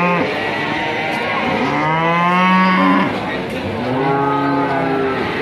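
Cattle mooing: two long, drawn-out moos, the first about two seconds in and a lower one about four seconds in, with the end of an earlier moo at the very start.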